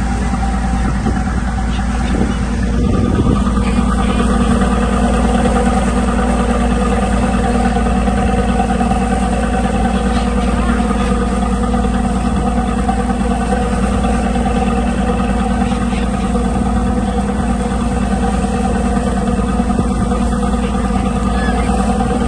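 An engine running at a steady speed, a constant loud drone with an even hum that does not change.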